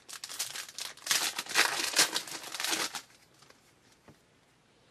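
Foil wrapper of a trading-card pack crinkling and tearing, a dense crackle that stops about three seconds in.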